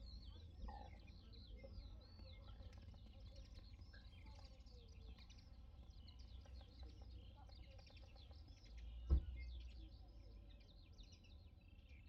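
Small birds singing and chirping in quick, overlapping phrases over a faint low rumble, with one sharp knock about nine seconds in.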